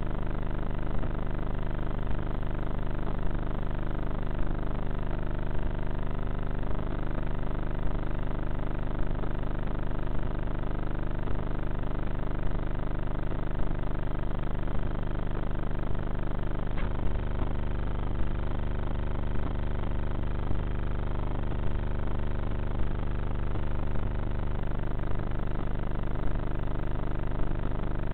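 The brushless electric motor and pusher propeller of a Bixler foam RC plane in flight, a steady drone heard through the onboard camera's microphone, with a faint click about once a second. The low end of the drone grows heavier for several seconds past the middle.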